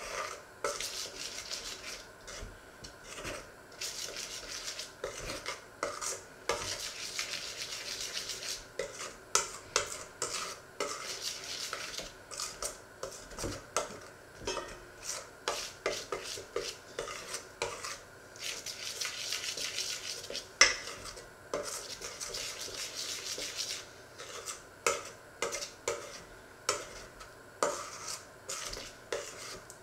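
A metal spoon stirs batter in a stainless steel mixing bowl. A rasping scrape is broken by frequent clinks of the spoon against the bowl's side, with one sharper clink about two-thirds of the way through.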